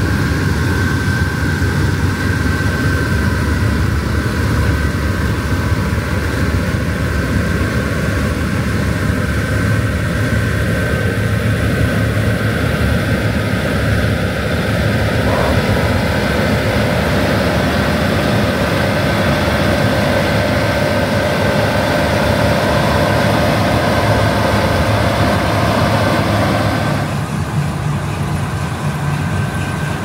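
Claas Lexion combine harvester running steadily at work: a dense machine drone with a constant high whine over it. The sound turns abruptly duller near the end.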